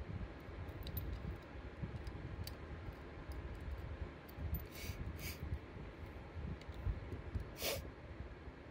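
Faint clicks of small metal parts being handled and fitted into an Edelbrock carburetor body, over a low steady rumble, with a few short rustling sounds around the middle and near the end.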